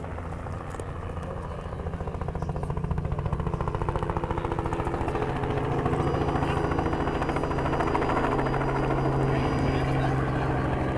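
Helicopter flying low overhead, its rotor beating in a fast steady chop with the turbine running underneath, growing louder over the first few seconds as it approaches and then holding.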